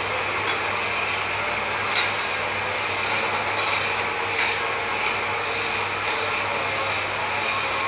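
Pipe bending machine running with a steady mechanical hum as a metal pipe is bent around its die, with a few light clicks.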